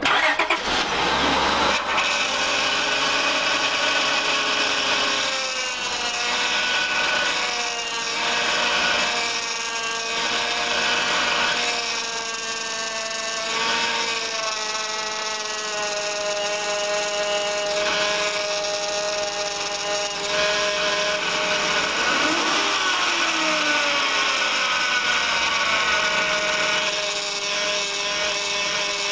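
2004 Honda Pilot's power steering pump whining and groaning just after the engine is started, a whine of several tones that waver up and down in pitch. The owner puts the noise down to air drawn in past old, dried-out O-rings on the pressure and return lines, and to a clogged reservoir screen starving the pump of fluid.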